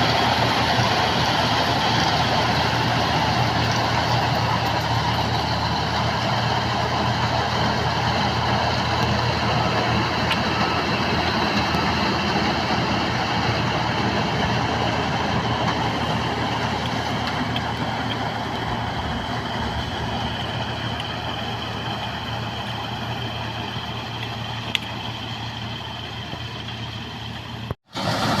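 Combine harvester running: a steady engine drone with the whir of its machinery. It grows gradually quieter over the last third, with a momentary break near the end.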